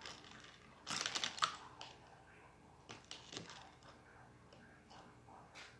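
Small clicks, taps and rustles of objects being handled on a table, in a short cluster about a second in, another around three seconds in, and a single tick near the end.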